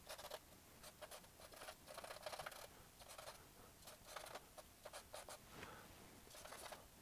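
Charcoal stick scratching on drawing paper in many short, quick, faint strokes.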